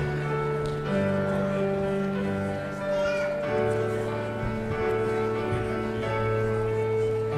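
Slow instrumental music: held chords with long, steady notes that change every second or two.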